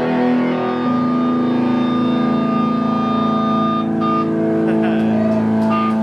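Amplified electric guitars holding a ringing chord with a steady high feedback tone and no drumming. The held notes shift once about a second in, and the feedback whine drops out briefly about four seconds in.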